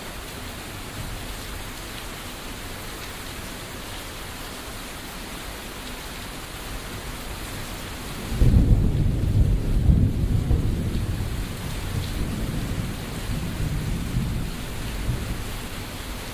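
Steady rain falling, with a deep roll of thunder breaking in about halfway through and rumbling away over several seconds.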